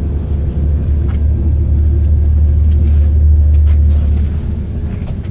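Scania L94IB bus's DC9 five-cylinder diesel and drivetrain heard from inside the cabin: a loud, deep drone that builds over the first few seconds and then eases off about four seconds in, with a few short rattles.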